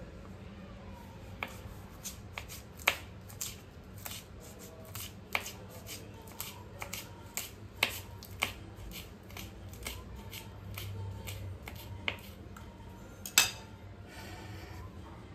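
Kitchen knife chopping green chillies on a wooden chopping board: a run of sharp, irregular taps, the loudest near the end.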